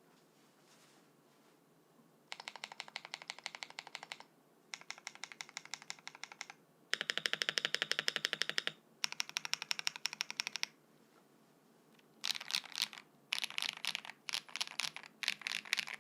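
Custom KBD67 Lite mechanical keyboard with lubed Holy Panda tactile switches on a polycarbonate plate and DMK keycaps, typed on fast in runs of one to two seconds with short pauses between. Typing starts about two seconds in, and the densest, loudest run comes near the middle.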